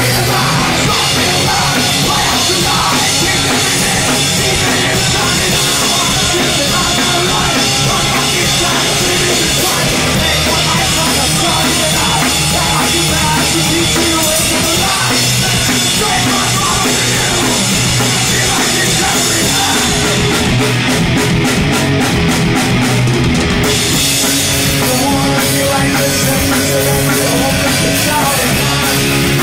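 Punk rock band playing live and loud: distorted electric guitar and bass over a drum kit with crashing cymbals, with a sung lead vocal.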